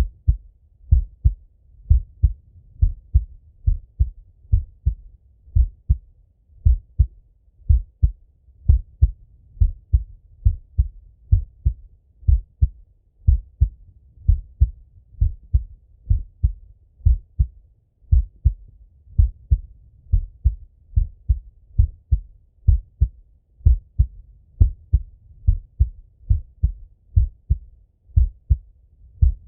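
An adult man's heartbeat heard through a Littmann stethoscope on his chest: a steady lub-dub, each beat a pair of low thuds, about one beat a second.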